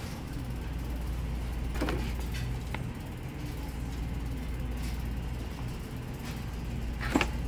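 Resealable plastic snack pouch crinkling a few times as it is handled, over a steady low rumble; the loudest crinkle comes near the end.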